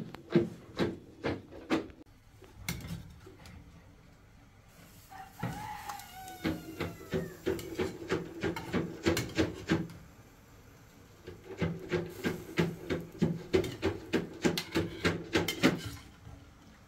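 Runs of rapid, even knocking or rubbing strokes, about three to four a second, in three bursts. A rooster crows once about five seconds in.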